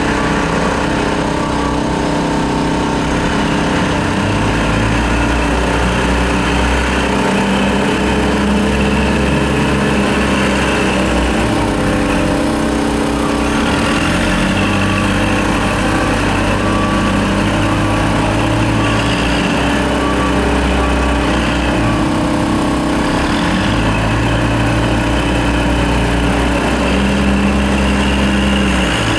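Backhoe loader's diesel engine running continuously as it digs out a trench, its low engine note swelling in stretches of several seconds as the hydraulics take load.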